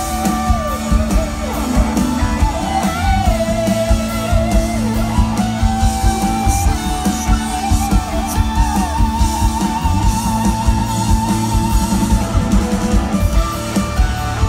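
A live rock band plays, with an electric guitar lead line that bends and wavers in vibrato over bass and a steady drum beat.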